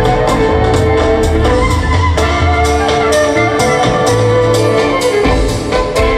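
Instrumental music from a violin, guitar and percussion ensemble: sustained melody lines over a bass line and a steady beat.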